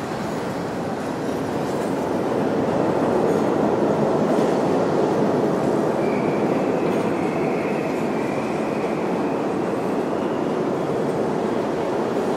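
Subway train running past a platform: a steady rumble that swells about two seconds in, with a faint high wheel squeal from about six seconds in.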